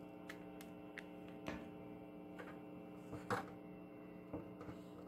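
Faint steady hum from a guitar amplifier rig left idle with the guitar not played, broken by a handful of scattered soft clicks, the loudest a little past halfway.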